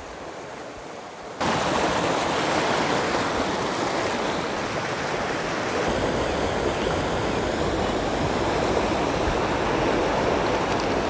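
Fast mountain stream rushing over rocks, a steady rush of water. It jumps louder about a second and a half in, and a deeper rumble joins around the middle.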